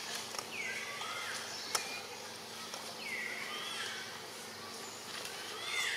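Insects buzzing steadily, with several short high chirping calls that dip and rise in pitch, about a second apart, and one sharp click near the middle.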